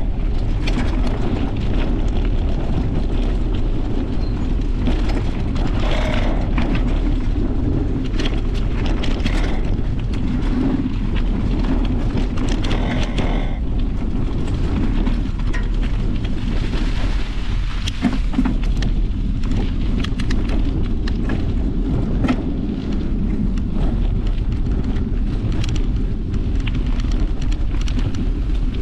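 Steady wind rumble on a mountain biker's GoPro microphone, mixed with the noise of tyres rolling on a dirt trail. Scattered clicks and rattles come from the bike going over stones and roots.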